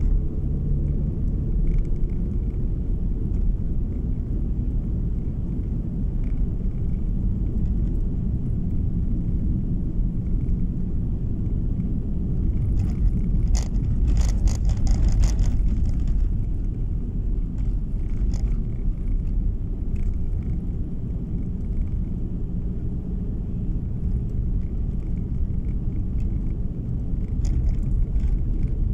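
A car driving on a snow-packed road, heard from inside the cabin: a steady low rumble of tyres and engine. About halfway through comes a short run of clicks and rattles lasting a couple of seconds.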